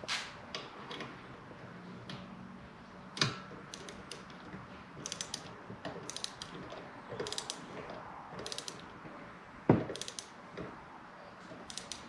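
Torque wrench ratchet clicking in short runs of rapid clicks as bolts are tightened, with a single sharp knock a little before ten seconds in.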